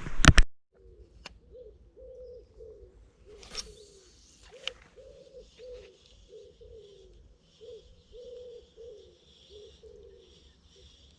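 A dove cooing over and over, short falling coos about one or two a second, with small birds chirping faintly in the background. A sharp loud click comes just after the start.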